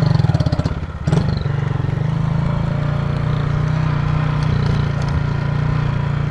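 Honda CG 150 Titan single-cylinder four-stroke motorcycle engine pulsing under throttle for about the first second, dropping briefly about a second in, then running steadily as the bike rides on.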